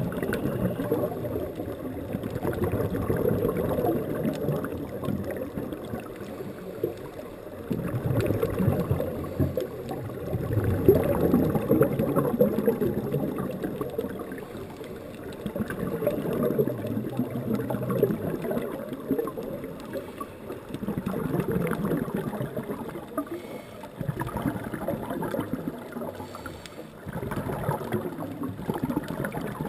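Scuba diver's exhaled bubbles from the regulator, heard underwater: a low bubbling gurgle that surges in bursts every few seconds, with quieter gaps between breaths.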